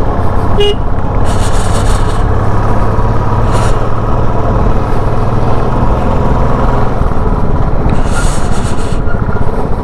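Royal Enfield Standard 350's single-cylinder engine running steadily at low speed, heard close up from the bike. Short hissy bursts come about a second in, midway and near the end.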